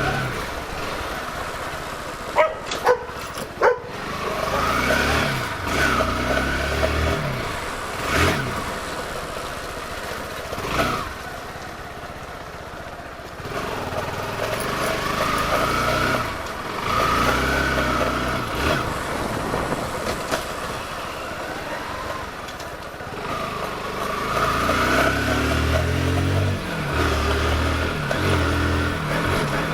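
Kawasaki motorcycle engine running under way, revving up and easing off several times. Three sharp knocks about three seconds in.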